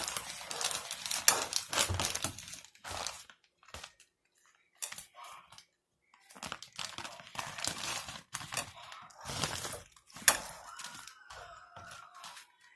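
Irregular crinkling and crackling handling noises in quick bursts, with a pause of about two seconds near the middle.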